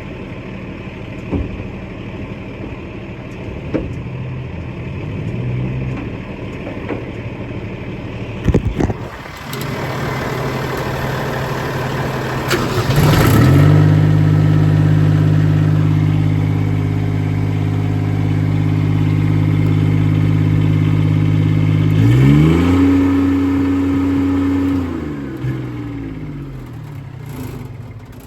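Engine-driven Miller welder running: its engine speeds up from a low idle to a higher steady speed, dips briefly and recovers, then slows back down near the end.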